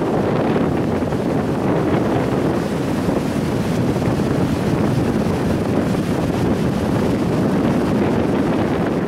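Wind buffeting the camera microphone in a steady loud rush, with breaking surf washing in beneath it.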